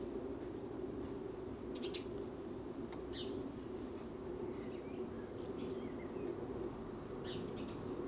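Small garden birds giving short, high chirps: a pair about two seconds in, one about three seconds in, a few softer ones in the middle and a pair near the end, over a steady low background hum.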